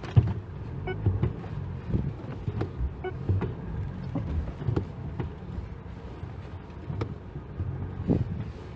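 Mitsubishi Triton pickup driving slowly over rough, potholed dirt, heard from inside the cabin: a low rumble from the tyres and suspension, broken by repeated knocks and thuds over the bumps.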